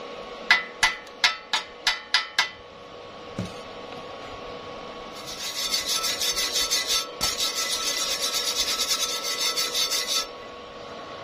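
Seven quick, ringing taps of a chipping hammer knocking slag off a fresh stick weld on steel square tube. About five seconds in, a wire brush scrubs the weld with a steady scratching for about five seconds, breaking off briefly midway.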